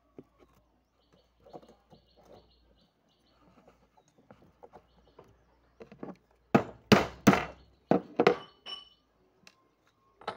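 Hammer striking a steel punch set in a spent 12-gauge shotgun shell held in a steel block, as part of reloading the shell: a quick run of about six sharp metallic blows about six and a half seconds in, after some light clinks of handling.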